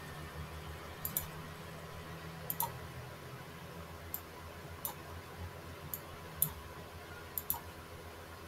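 Computer mouse buttons clicking: about ten sharp clicks, some in quick pairs, over a low steady hum.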